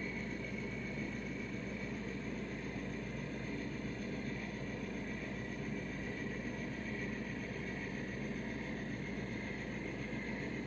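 Steady, even hum and whir of a small electric motor, with a constant higher whine, such as a motorized display turntable slowly rotating.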